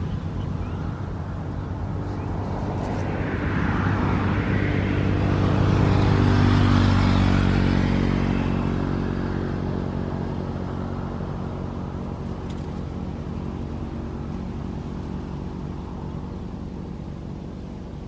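A motor engine running, growing louder to a peak about six or seven seconds in and then slowly fading, as a vehicle passing by would.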